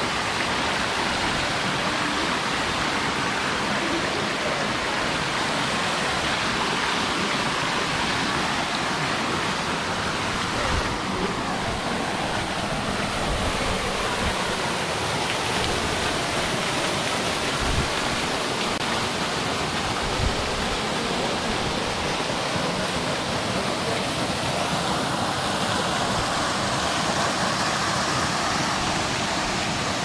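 Steady rush of a waterfall and the stream running over rocks below it. The tone shifts about eleven seconds in, and a few brief low thumps come through.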